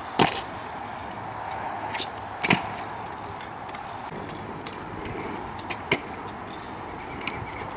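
Stunt scooter on asphalt: the small wheels rolling with a steady grinding hiss, broken by several sharp clacks of the deck and wheels hitting the road on landings, the loudest just after the start and about two and a half seconds in.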